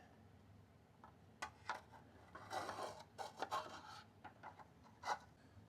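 Faint rubbing and a few light clicks and taps as a carbon-fibre front fender is eased into place between the motorcycle fork legs.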